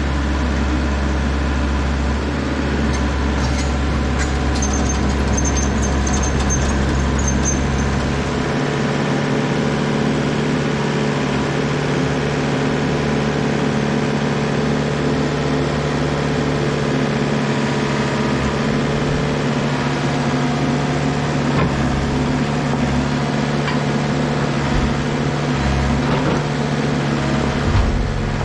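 Komatsu compact excavator's diesel engine running steadily while its hydraulics swing and grapple logs, with a few knocks of wood.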